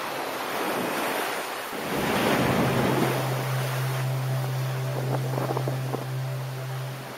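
Sea surf surging and breaking over rocks, a continuous rushing wash that swells louder about two seconds in, with wind buffeting the microphone. A steady low hum runs under it from about two seconds in.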